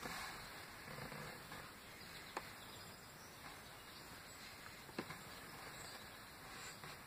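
Quiet room tone with a steady faint hiss, broken by two small sharp clicks about two and a half and five seconds in, as a nail polish bottle and brush are handled while painting fingernails.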